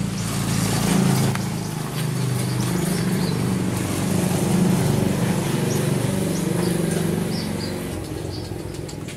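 An engine running with a steady low hum, which drops away about eight seconds in; birds chirp faintly over it.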